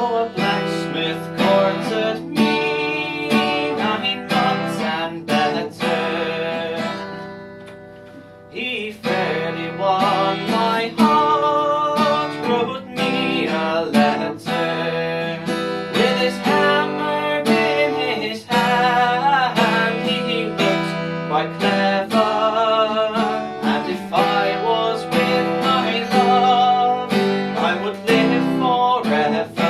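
Acoustic guitar played as a folk accompaniment, chords strummed and picked in a steady rhythm. About seven seconds in, a chord is left to ring and fade, and the playing starts again about a second and a half later.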